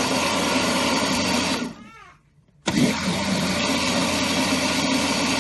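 Electric countertop blender whirring through strawberries, milk and ice cream. It is switched off about a second and a half in, its motor winding down with a falling whine, then switched back on about half a second later and running again: pulsing the milkshake on and off.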